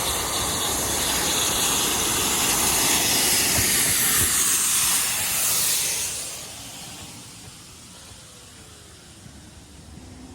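Steam locomotive hissing steam as the train passes, steady for about six seconds and then dying away.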